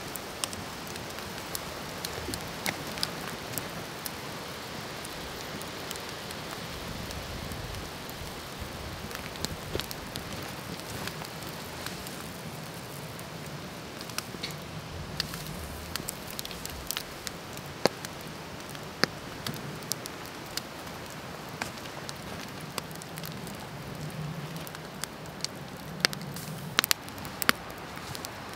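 Wood campfire crackling, with sharp pops scattered irregularly over a steady hiss; the pops come more often in the second half.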